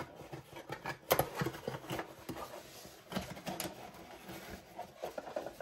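Cardboard shipping box being handled and set aside: scattered light knocks and scuffs with faint rustling, the sharpest knock about a second in.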